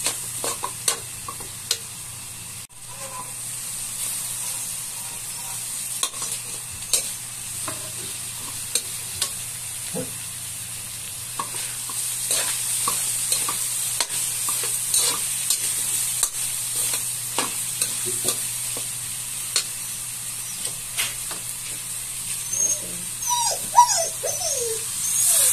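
Chicken and vegetables sizzling in a metal wok while a metal spatula scrapes and clacks against the pan in a stir-fry. Near the end, water is poured into the wok from a bottle.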